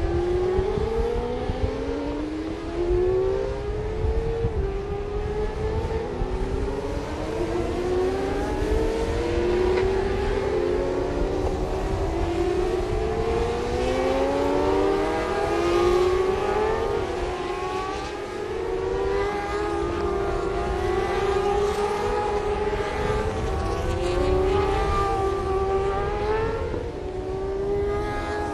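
600 cc supersport racing motorcycle engines at full throttle, pitch climbing and then dropping back again and again as they shift up through the gears, over a steady low rumble.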